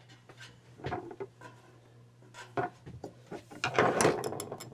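Scattered clicks, taps and rubbing from hands working on a space heater's wiring and housing during reassembly, with a quick run of rattling clicks about four seconds in. A faint steady low hum runs underneath.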